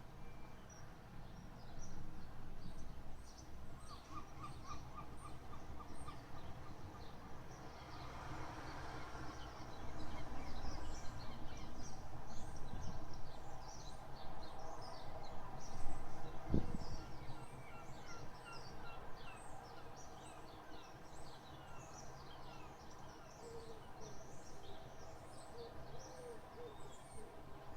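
Birds singing and calling, many short rapid chirps overlapping, with a run of repeated notes early on and a lower repeated call near the end. A single sharp knock sounds about halfway through.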